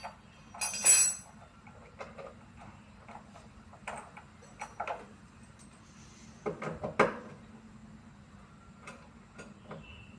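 Scattered metallic clinks and knocks of tools and parts being handled while a front-loading washing machine is taken apart. The loudest come about a second in and about seven seconds in.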